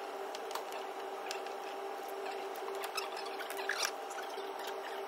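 Faint scattered clicks and light rubbing of metal parts as a new water pump and its bolts are fitted by hand to a Ford 2.0 TDCi diesel engine, over a steady hum.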